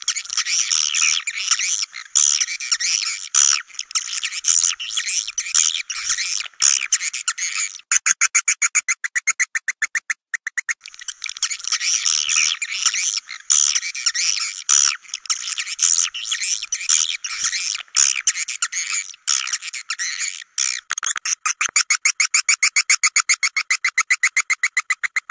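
Edible-nest swiftlet calls on a lure recording: dense, rapid chattering chirps and clicks, all high-pitched with no low sound, turning into a fast, even train of pulses near the end. This is the call played to draw swiftlets into a swiftlet house and get them to roost.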